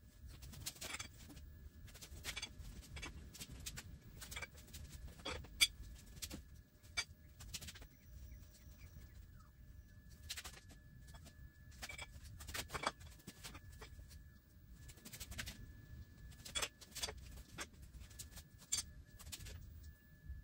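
Faint, irregularly spaced light clicks and taps, about one a second, over a low rumble and a faint steady high whine.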